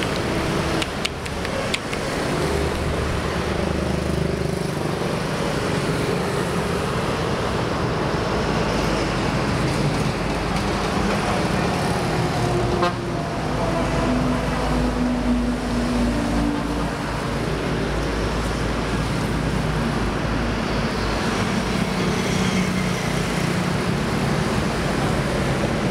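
Steady highway traffic passing close by, engines and tyres running continuously, with a vehicle horn tooting briefly near the middle.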